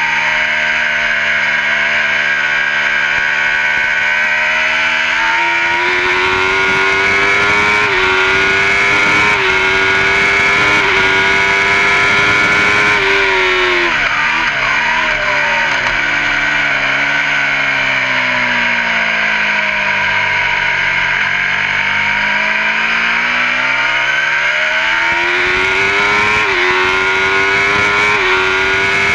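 Racing superbike engine heard from onboard at high revs: it pulls up through the gears with short steps in pitch, goes through a quick run of changes with rapid pitch swings about 13 s in, then the revs fall slowly and climb again before more upshifts near the end. Wind rushes over the microphone throughout.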